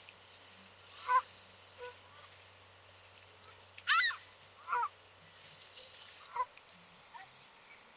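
Canada geese honking: about six scattered single honks a second or more apart, the loudest a two-note honk about four seconds in.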